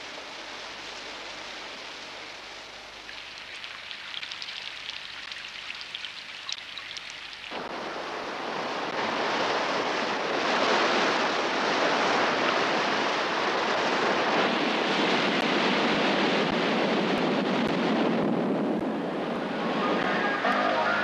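Coastal storm: a steady hiss of wind with faint scattered ticks, then, about seven and a half seconds in, a sudden step up to a much louder, fuller rush of heavy surf and wind, which eases a little near the end.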